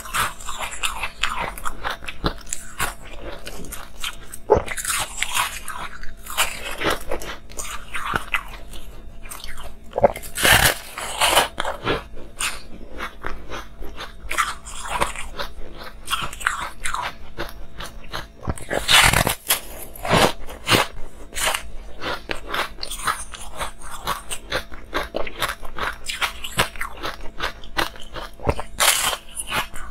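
Close-miked biting and chewing of a block of layered, rainbow-coloured frozen ice: a dense, continuous crunching and crackling, broken by a few louder crunching bites.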